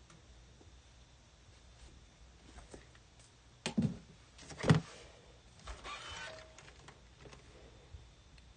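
Two knocks of hard tools set down on a work table, about a second apart near the middle, the second louder, followed by a brief rustle: an acrylic quilting ruler is moved off a towel and an iron is brought onto it.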